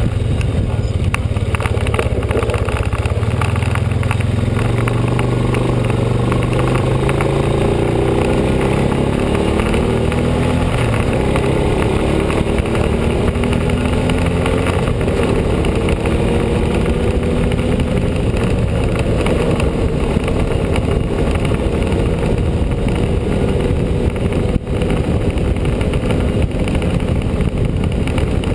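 ATV engine running while riding, its pitch climbing steadily through the middle as it picks up speed, then holding.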